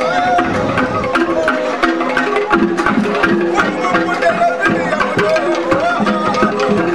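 Traditional Cameroonian masquerade music: drums and other percussion beating a busy, repeating rhythm, with a melody over it that slides between notes.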